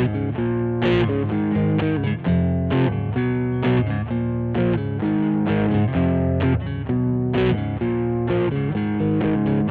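Squier Vintage Modified Jaguar electric guitar played through an amplifier: chords strummed in a steady rhythm and left to ring.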